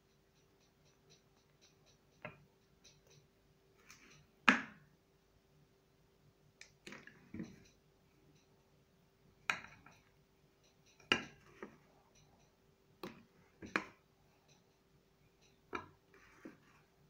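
Metal spoon clinking against a mixing bowl while stirring oil into flour: about nine sharp clinks a second or two apart, the loudest about four and a half seconds in. A faint steady hum runs underneath.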